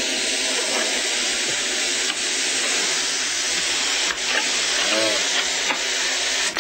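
Steady hiss of air rushing through the neck of a rubber balloon, cutting off suddenly at the end, with a brief squeaky tone about five seconds in.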